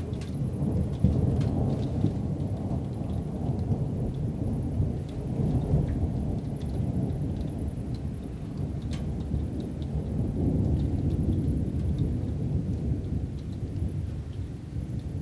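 Long rolling thunder from an approaching thunderstorm. It starts suddenly and rumbles on with several swells and dips.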